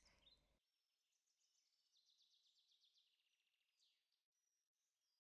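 Near silence, with a very faint bird trill of rapid, high, repeated notes about two seconds in, and a few faint high calls later.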